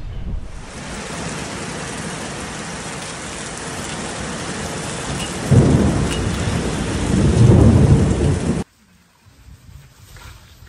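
Heavy rain as a steady hiss, with two louder low rumbles a little past halfway, cutting off suddenly near the end.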